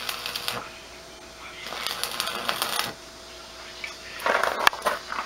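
Arc welding on rebar: the welding arc crackles in short bursts of about a second each, with pauses between them, as the bars are tack-welded together.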